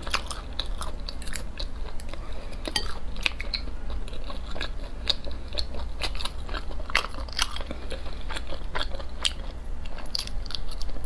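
Close-miked eating sounds of sea snails in chili oil being chewed, with wet chewing and many short sharp clicks throughout, over a low steady hum.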